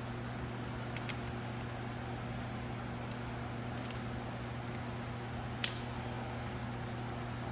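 Steady low hum of shop equipment, with a few sharp metallic clicks from work on engine parts, the loudest about five and a half seconds in.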